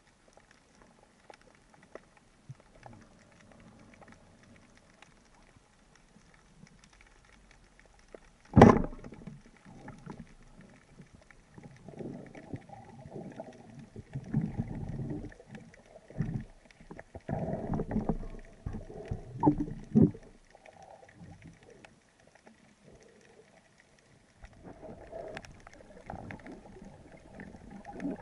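Underwater sound picked up by a diver's camera: one sharp knock about eight seconds in, then irregular rumbling water noise, which drops away and then builds again near the end as the camera rises toward a choppy surface.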